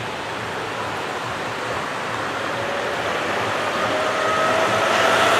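Tatra tram approaching on street track. Its rolling noise grows steadily louder, and a whine comes in about halfway through and strengthens towards the end, over the noise of passing road traffic.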